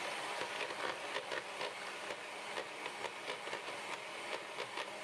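A 300-watt electric hand mixer running steadily on its lowest speed, its twin beaters whisking egg whites to a froth, with a light rapid ticking over the motor's hum.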